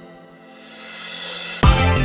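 Electronic background music: a sustained sound that fades down and swells back up, then heavy bass and a beat come in near the end.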